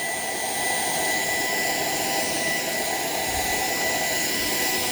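Shark PowerDetect robot vacuum running steadily: an even rushing hiss with a constant high whine.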